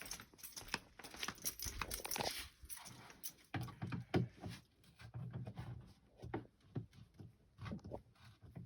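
Phillips screwdriver being worked on a hip-pad screw in a plastic whitewater kayak: irregular clicks, knocks and creaks from the tool and the plastic hull.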